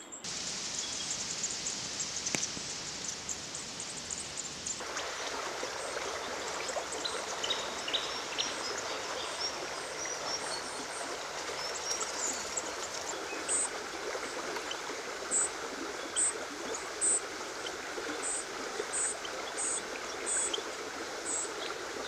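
Steady rushing of a small forest creek, with short high-pitched bird chirps: a few in the middle, then repeating about once a second through the second half.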